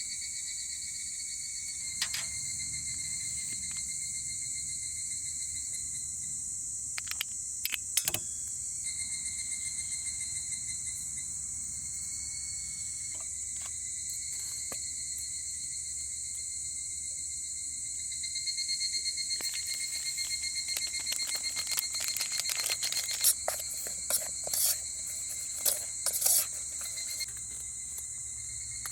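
Insects chirring with a steady high-pitched drone throughout. Scattered clicks and knocks sound over it, coming thick and fast in the last third.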